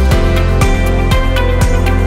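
Background music with a steady beat of about two beats a second over a strong bass line.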